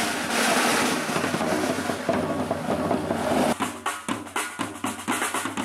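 Snare drums of a flag-throwers' drum corps playing a continuous roll that breaks into separate, rhythmic drum beats about three and a half seconds in.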